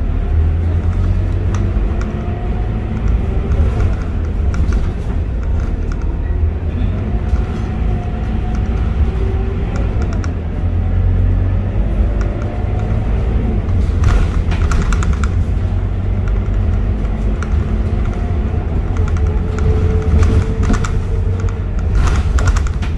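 Scania K230UB city bus's five-cylinder diesel engine and drivetrain running as the bus drives, heard from inside the passenger cabin as a steady low rumble, with a faint whine that rises and falls in pitch. A few short rattles come about two-thirds through and again near the end.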